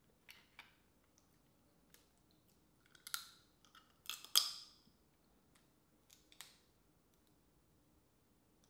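Boiled crawfish being peeled and eaten: scattered shell crackles and wet mouth sounds, in short bursts with the loudest around three and four and a half seconds in.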